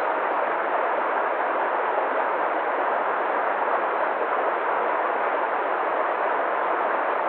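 Waterfall: falling water rushing in a steady, even roar without a break.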